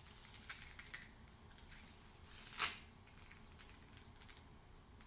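Faint sounds of a cheesecloth bundle of thinly chopped onions being wrung out by hand, with onion juice dripping onto a glass plate as small scattered ticks, and one brief louder squish about two and a half seconds in.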